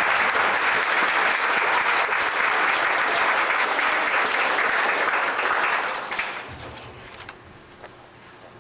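Audience applauding, with the clapping dying away about six seconds in.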